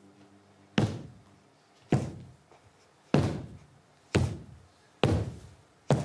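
Six heavy, slow stomping footsteps in high-heeled shoes on a hard stage floor, about a second apart, each with a short echo: big clumpy steps meant as a monster's tread.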